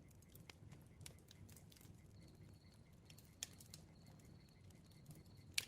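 Faint crackling bonfire: scattered small pops and snaps over the low rumble of the flames, with one sharper pop near the end.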